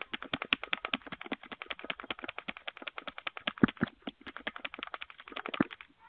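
Ring video doorbell's button pressed over and over, a fast run of sharp clicks close by, several a second, with a few heavier knocks past the middle and near the end.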